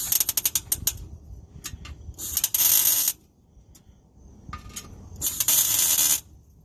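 Miller Millermatic 251 MIG welder's arc crackling in three short bursts of about a second each, the first starting with a few stuttering clicks as the arc strikes: tack welds on an exhaust pipe being fitted.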